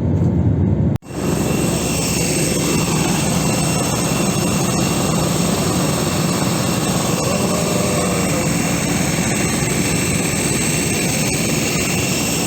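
Jet airliner's engines heard from inside the cabin during the landing roll just after touchdown: a steady loud rush with high whining tones, with a fainter falling whine a couple of seconds in. The sound drops out for an instant about a second in.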